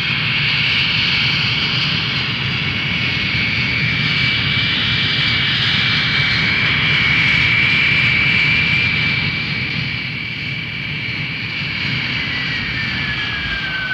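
Jet airliner engines running, a steady high whine over a low rumble; near the end the whine slides down in pitch as the engines wind down.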